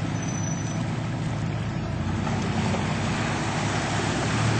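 Four-wheel-drive SUV's engine running steadily as it drives into a flooded, muddy trail, with its tyres churning and splashing through the water. The rushing water noise grows louder about two seconds in.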